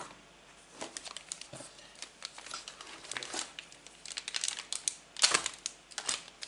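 Clear plastic packaging crinkling and rustling as a hand rummages through a cardboard box and handles the wrapped items, in irregular crackles with the loudest burst about five seconds in.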